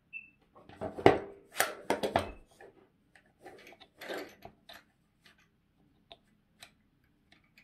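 Hands working a plastic plug connector that is stuck in the end of a silicone-covered LED strip. There is a cluster of sharp clicks and scrapes about a second in, the loudest at its start, then scattered light clicks and rubbing.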